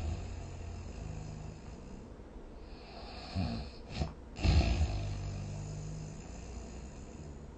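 A person snoring. A low droning snore fades out, then a hissing in-breath comes, then a loud snorting snore about four and a half seconds in, trailing off into another low drone.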